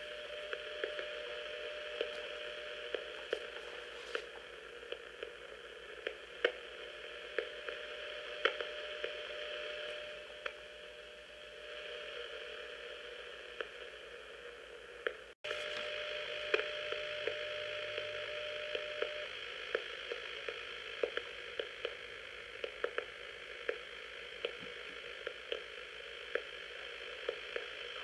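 Realistic Timekube shortwave radio receiving the WWV time signal: a steady audio tone over static hiss, with sharp clicks about once a second marking the seconds. The tone stops about two-thirds of the way through, and the sound drops out briefly about halfway.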